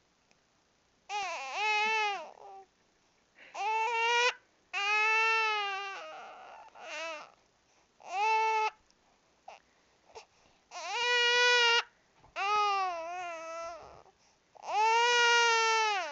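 Baby crying over hiccups: a string of about eight wailing cries, each about a second long, with short catch-breath pauses between them.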